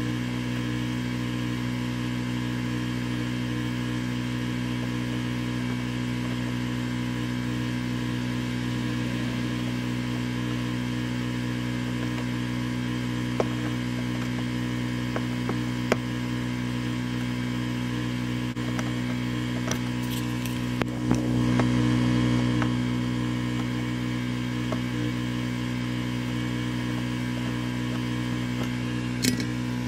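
Steady low machine hum throughout, with a few faint clicks and a brief swell a little past two-thirds of the way through.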